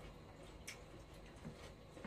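Near silence with faint sounds of people eating by hand: one soft click a little over a third of the way in and a faint knock later on.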